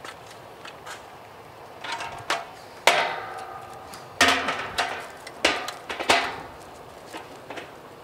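A metal lid being set and knocked down onto the metal drum of a Moultrie tripod deer feeder: several clanging knocks, each with a short metallic ring, the loudest about three and four seconds in.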